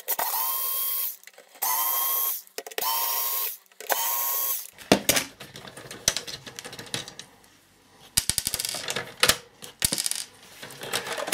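Electric screwdriver whining in four short runs, one per screw, undoing the four screws in the sheet-metal base of a satellite set-top box. About five seconds in, it gives way to light clicks and rattles of the loosened screws and metal casing being handled.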